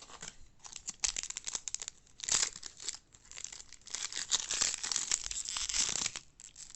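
Plastic wrapper of a 2022 Topps Series 1 baseball card pack being torn open and crinkled. It is a run of scratchy rustles, heaviest in the second half.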